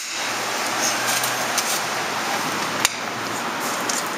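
Sonny's 15-horsepower central vacuum unit running with a steady rushing noise, with a sharp click about three seconds in.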